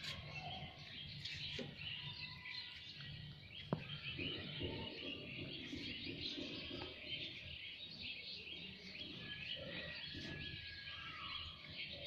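Faint, continuous chirping of many birds, with a single sharp click nearly four seconds in.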